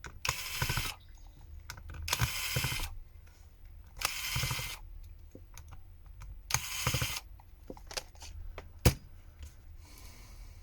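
Small screwdriver turning out the phone's frame screws: four short rasping, clicking bursts about two seconds apart, then a single sharp click near the end.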